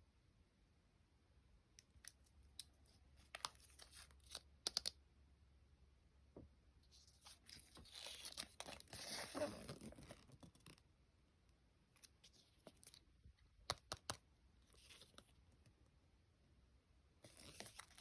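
Toy packaging being handled and torn open, quietly: a few sharp clicks, then a rustling tear lasting a few seconds about halfway through, and more clicks and crinkling near the end.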